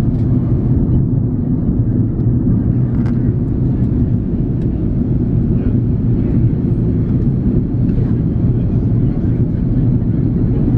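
Steady low cabin roar of an Airbus A330-300 in flight, airflow noise and the hum of its two Pratt & Whitney PW4168A turbofans heard from inside the cabin during the descent, with a few faint ticks of cabin noise.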